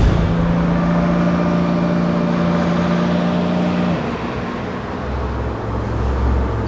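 Steady low drone of a bus engine running while under way, with a held tone that cuts off about four seconds in and leaves a lower hum.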